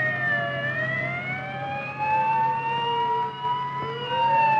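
Fire engine sirens wailing, with two or more slow rising and falling tones overlapping and crossing, over a steady low hum. They cut off suddenly at the very end.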